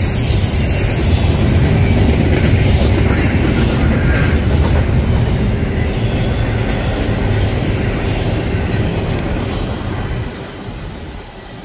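Double-stack intermodal freight train rolling past close by: a loud, steady low rumble of the cars' steel wheels on the rails. The sound drops off sharply about ten seconds in.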